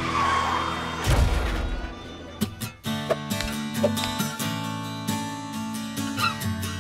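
A whooshing noise with a low thud about a second in, then an acoustic guitar strummed in steady chords from about three seconds in.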